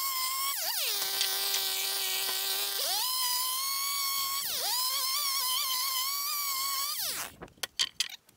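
Chainsaw ripping a board lengthwise: a high, steady whine that sags in pitch whenever the chain bites into the wood, dropping much lower for about two seconds near the start before it picks back up. It stops about seven seconds in, and a few light knocks follow.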